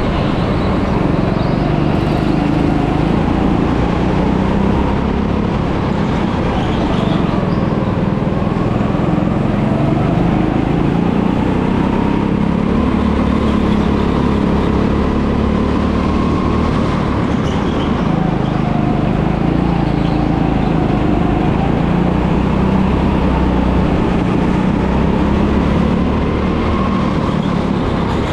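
Go-kart engine running continuously under load, its pitch rising and falling as the kart speeds up and slows through the laps.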